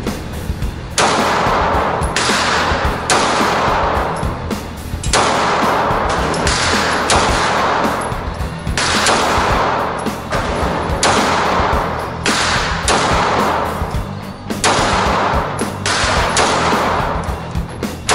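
9mm semi-automatic pistol firing a string of single shots at an unhurried pace, roughly one a second, each crack followed by a short echo off the walls of an indoor range.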